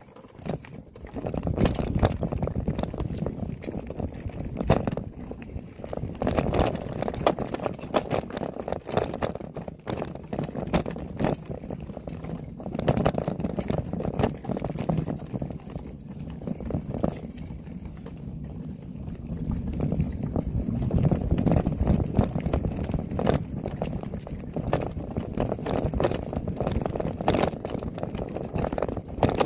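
Wind buffeting the microphone and the rumble of moving fast over a dirt trail, with many irregular knocks and rattles. The noise swells and eases in waves.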